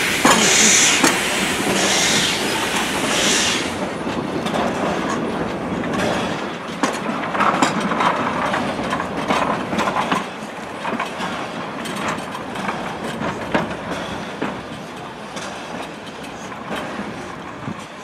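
Steam locomotive hauling a rake of wooden carriages at walking pace: its exhaust chuffs about once a second for the first few seconds. After that the carriage wheels click and clank over the rail joints, with a brief squeal in the middle, growing quieter as the train moves away.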